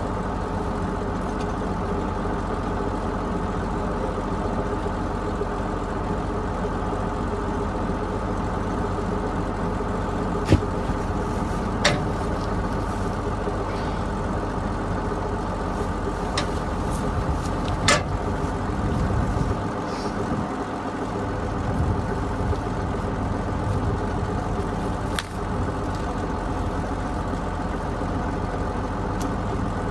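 John Deere 7720 tractor's six-cylinder diesel engine running steadily under load while pulling a working hay baler, with a few short sharp clicks scattered through.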